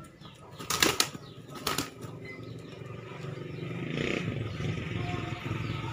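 Rooster beating its wings in short flurries as it leaps at a swinging sandal, two quick bursts about a second in and near two seconds. A low steady hum grows louder underneath.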